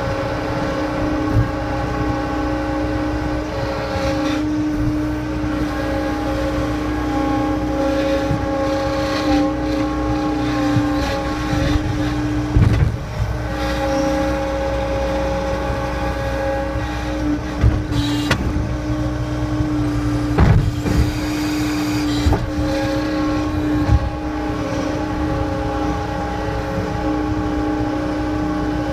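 John Deere 326E skid steer loader's diesel engine running steadily at a constant speed, with a few sharp clunks from the machine in the middle.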